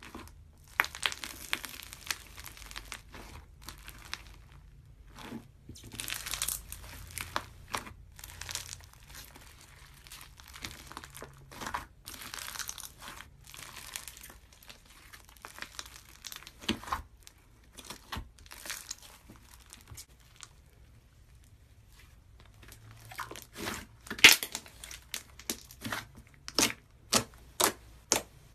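Hands squishing and kneading slime loaded with small cubes and beads, giving irregular crackling and crunchy squelches. Near the end come a run of sharp pops about two a second as fingers poke into the slime.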